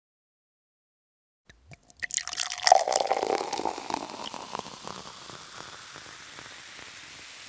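Fresh juice poured from a plastic pitcher into a glass bottle. After a second and a half of silence and a few light clicks, the pour starts about two seconds in, loudest at first, then settles into a steady soft trickle.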